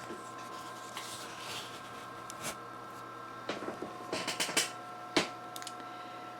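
Power Mac G4 booting up: a steady whir of its fans and spinning drives with a few whining tones, a new one joining about four seconds in, and a scattering of sharp clicks and taps.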